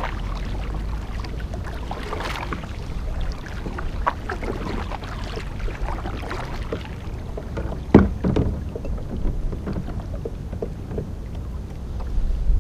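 Small fishing boat on the sea: a steady low rumble with scattered splashes and small knocks against the hull, and one sharp, loud knock about eight seconds in.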